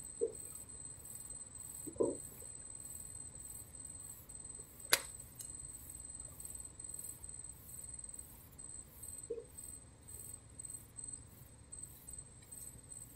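A few soft knocks and one sharp click about five seconds in as a caught prawn is handled on the fishing line, over a steady high insect trill that pulses evenly.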